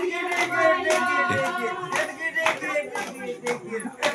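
A group of voices singing together to steady hand claps, about two claps a second. The singing fades after about two and a half seconds while the clapping goes on.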